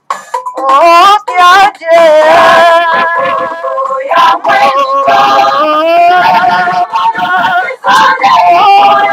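A song with singing voices, the melody wavering in pitch.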